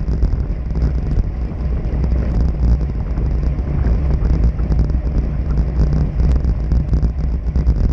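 Wind buffeting an action camera's microphone on a moving bicycle, a loud steady low rumble from riding downhill at speed.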